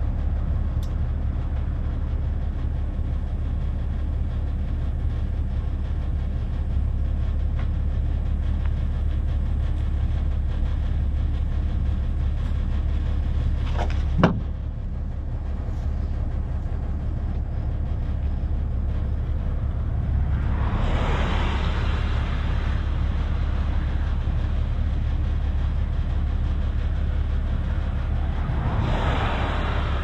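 Cars passing on a highway, one swelling up and fading about two-thirds of the way in and another near the end, over a steady low rumble. A single sharp knock about halfway through.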